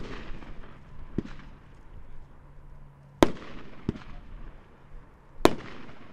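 Dominator 500-gram consumer fireworks cake firing its shots: sharp reports every one to two seconds, about five in all, each trailing off in a fading crackling hiss.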